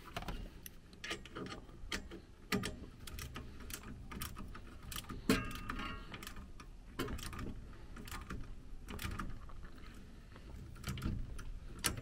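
Scattered small clicks, taps and rustles from hands handling wires and terminal connectors inside a gas furnace, with a short ringing note about five seconds in.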